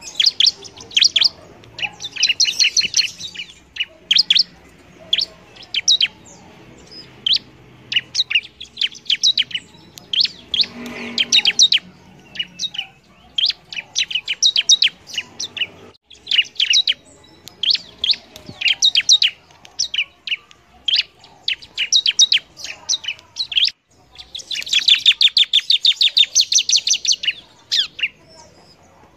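Bar-winged prinia (ciblek) singing in full voice: quick runs of sharp, high chirps in short bursts with brief pauses between them, and a longer, denser run near the end.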